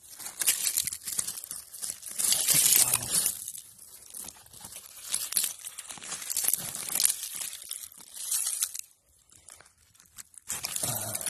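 Gloved hands digging through loose dirt and debris, crunching and scraping in several bursts with short pauses between.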